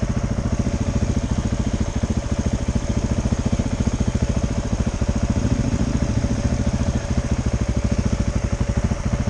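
KTM 690 Enduro R's single-cylinder engine running at a steady, low engine speed, with a fast, even beat.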